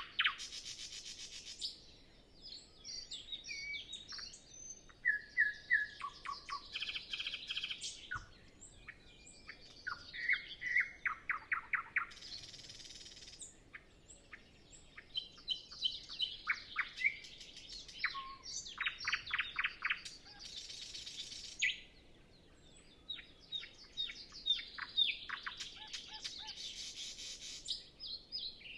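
Nightingale singing alone: phrases of fast repeated notes, trills and whistles, each broken off by a short pause before the next.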